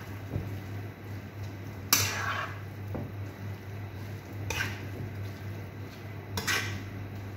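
Metal tongs scraping and clattering against a non-stick wok while stirring a chicken and spinach filling, with three sharp clinks about two seconds apart, the loudest about two seconds in.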